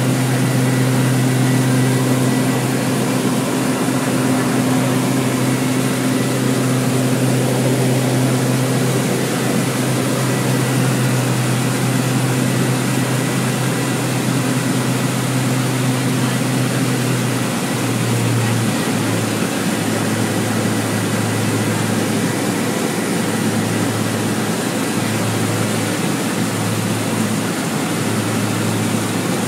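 Steady propeller-and-motor hum of a small aircraft in flight, over a constant rushing noise. The low hum wavers and breaks up in the last third.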